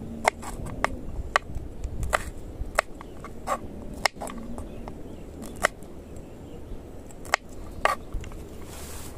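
Kitchen knife chopping green chillies on a wooden cutting board: about ten sharp knocks of the blade on the board, unevenly spaced.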